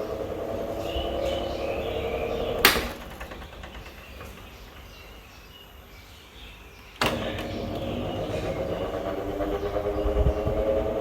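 Hatari 18-inch electric fan running with a steady motor hum, switched off with a sharp click about three seconds in and winding down, then switched back on with another click about four seconds later and running again. The fan has a rocking shaft and a worn, off-centre shaft bushing, which the owner blames for its strange noise.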